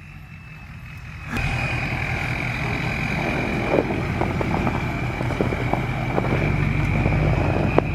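A car engine running while the car rolls slowly over snow, with scattered small crackles and a steady high whine over the engine. The sound steps up suddenly about a second and a half in.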